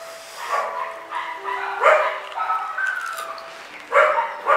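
A dog barking, four short barks: one about half a second in, one near two seconds, and two close together near the end.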